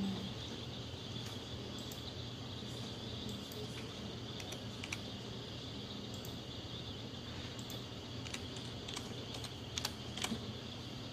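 Keypad buttons on a time clock being pressed in scattered light clicks over a steady background hum, with a few sharper clicks near the end.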